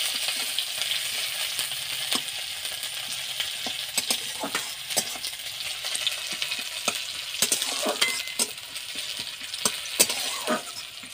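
Sliced onions sizzling in hot oil in a metal kadhai, stirred with a metal spatula that clicks and scrapes against the pan now and then.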